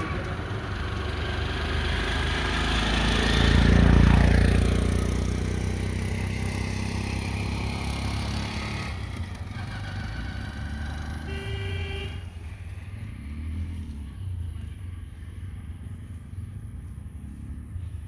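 A three-wheeled auto-rickshaw passes close by, getting louder to a peak about four seconds in, then fading as its pitch drops. A short vehicle horn toot sounds about eleven seconds in, and a faint low rumble carries on after it.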